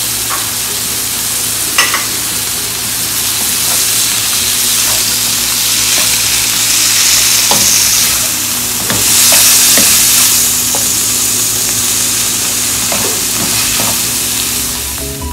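Shrimps, chicken and bell peppers sizzling in oil in a large kadai as they are stirred, with a few light knocks against the pan. The sizzle swells louder about nine seconds in.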